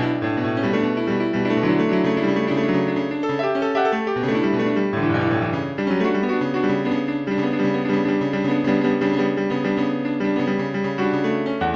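Instrumental piano music: sustained chords and melody notes.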